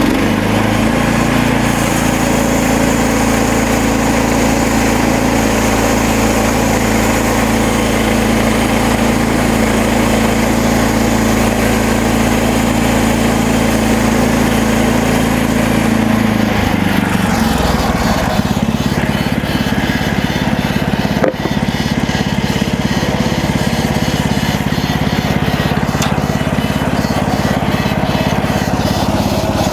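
The small gasoline engine of a MechMaxx SM32 band sawmill runs steadily while the blade saws through a cedar log. About seventeen seconds in, the engine's note changes.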